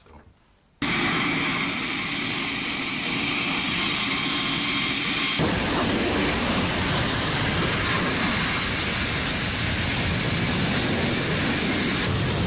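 Loud steady noise of a KC-130J tanker's four Rolls-Royce AE2100 turboprop engines in flight, with a high turbine whine. It starts abruptly about a second in, and its tone shifts suddenly around five seconds in.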